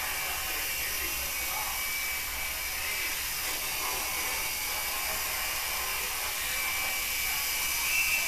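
HobbyKing DragonFly coaxial micro RC helicopter in flight, its small electric motors and counter-rotating rotors giving a steady high-pitched whine.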